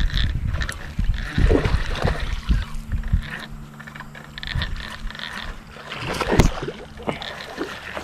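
Shirt fabric rubbing and flapping against a chest-mounted camera, with low wind rumble on the microphone in the first few seconds and a few sharp knocks, while a lure is cast and reeled in on a spinning reel. A faint steady hum runs through the middle.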